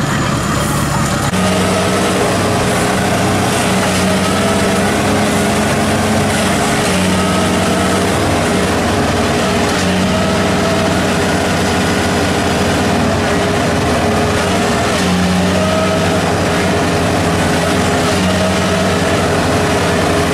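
Engines of a tracked rice cart stuck in mud and the harvester towing it by chain. They pick up revs about a second in, then run hard under load as they try to drag the cart free.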